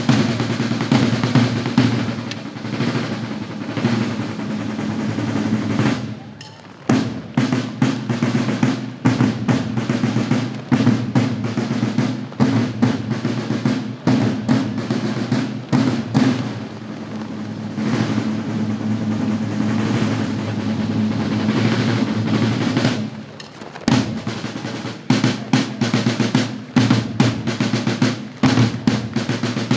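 Drum corps of a flag-throwers' troupe playing snare drum rolls and rhythmic cadences, dropping away briefly twice.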